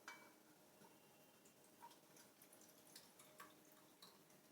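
Near silence with faint, scattered drips and light clicks: hot herbal kadha being strained, dripping through a strainer.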